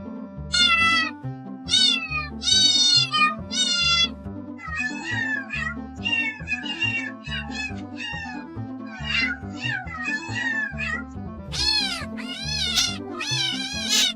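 Kittens meowing over and over, a string of short high calls packed close together in the middle and several louder, longer meows near the end, over background music with a steady beat.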